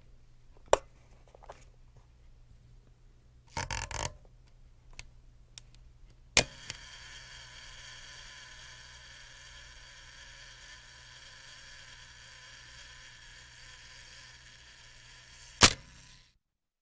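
Camera shutter clicks: single sharp clicks about a second in and at about six seconds, a short double-click burst near four seconds, and a loud click near the end. A steady hiss with a faint tone sits under the clicks from the six-second click on.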